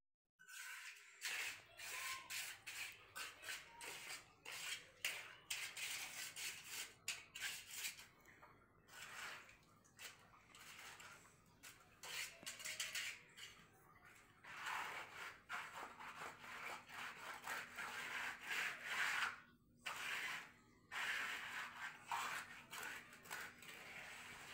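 Steel mason's trowel scraping and spreading wet cement mortar, in many short, irregular strokes with a few brief pauses.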